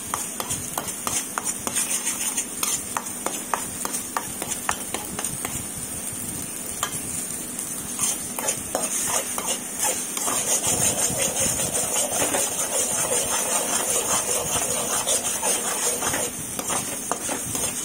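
Ladle scraping and knocking against an aluminium kadai in rapid, repeated strokes as a ground onion, ginger and garlic paste is stirred while it fries.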